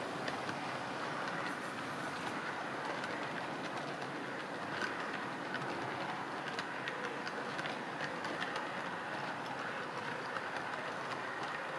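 Model railway train rolling past on its track: a steady rolling noise from the wagon wheels, with many light, irregular clicks as they run over the rails.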